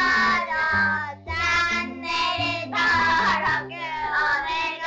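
Upbeat end-screen jingle: a high sung vocal melody over a bass line that steps from note to note.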